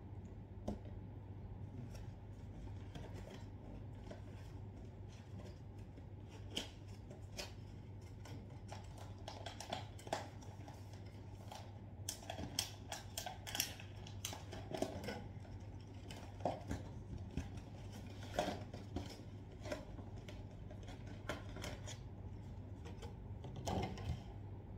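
Cardboard packaging of a guitar cable being opened and handled: scattered scrapes, taps and rustles of the box and its inner packaging, busiest in the middle and again near the end, over a steady low hum.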